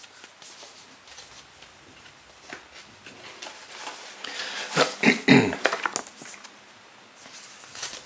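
Rustling and light clicks of a CD booklet and case being handled, with a short, loud, throaty sound falling in pitch about five seconds in.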